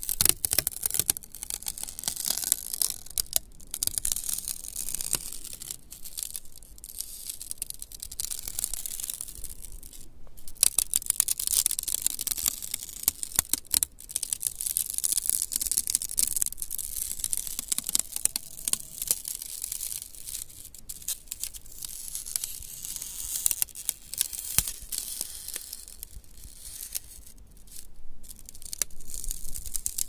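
Ice-coated tree branches and twigs crackling and ticking: a dense, uneven crackle of many small, sharp clicks that swells and eases.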